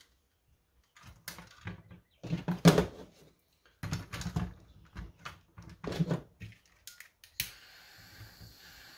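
Hand tools (wire cutters and a screwdriver) clicking and knocking against a toy blaster's plastic parts. About seven seconds in, a butane soldering torch lights with a sharp click and then hisses faintly and steadily.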